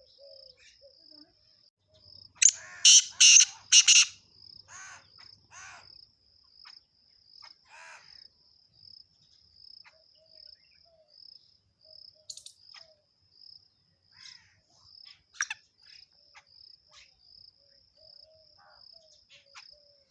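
Songbirds chirping in short bursts, loudest in a quick cluster of calls a few seconds in, with a few single chirps later. Underneath, a steady high-pitched chirp repeats about twice a second throughout.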